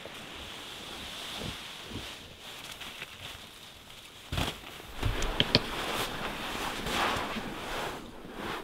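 Tent fabric rustling as it is shaken out and pitched, with footsteps on pine-needle ground and a few knocks around the middle.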